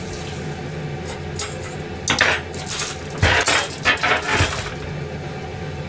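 Dishes and utensils clinking and clattering in a few quick bursts, from about two seconds in until about four and a half seconds, over a steady low hum.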